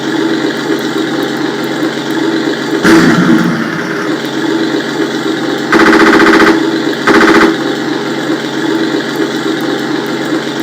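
RC tank sound unit playing a steady simulated tank engine idle through the model's speaker, with two bursts of simulated machine-gun fire about six and seven seconds in, the first longer than the second.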